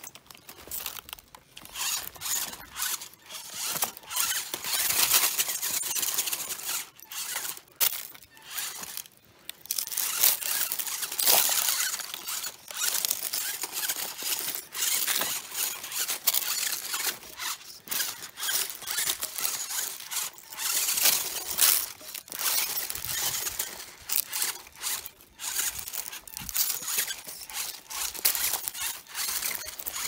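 High-pitched whine of a 1:16 scale RC rock bouncer's small electric motor and gears, starting and stopping in short bursts of throttle as the truck clambers over creek-bed rocks, with tyres scraping on stone.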